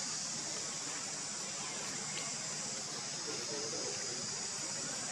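A steady, high-pitched drone of an outdoor insect chorus.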